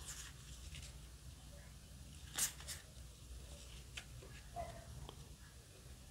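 Yu-Gi-Oh! trading cards handled in the hand, sliding and rubbing against each other as cards are moved through a stack, in short soft rustles; the sharpest about two and a half seconds in.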